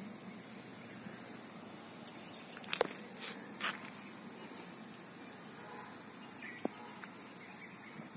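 Insects singing in a steady, high-pitched chorus, with a few short clicks, the loudest about three seconds in.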